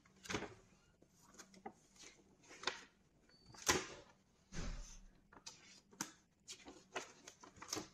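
Glossy paper instruction booklet being opened and its pages handled: scattered soft rustles and crackles, the loudest a little past the middle.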